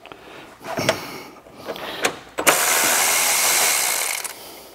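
Cordless electric ratchet spinning out the bolts that hold the radiator to the fan assembly: a few short bursts and a click, then a steady run of about two seconds from halfway in.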